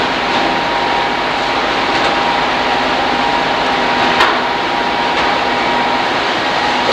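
Steady machinery noise of a fishing trawler's processing deck, with a low hum and a higher steady whine running through it, and a single knock about four seconds in.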